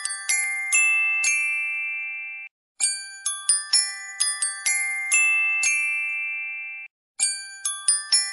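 Background music: a short tinkling chime phrase of quick struck bell-like notes that are left ringing and then cut off abruptly, repeating about every four and a half seconds.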